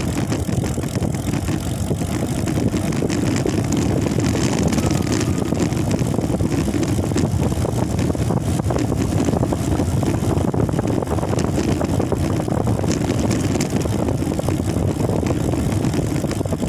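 Steady rumble of a moving vehicle from on board, engine and road noise with wind on the microphone.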